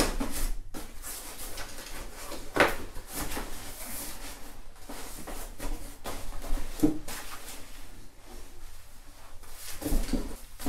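Fabric seat pad being pulled over and fitted onto a plastic high-chair seat: rustling and rubbing of the padded cover, with a few knocks of the plastic seat shell.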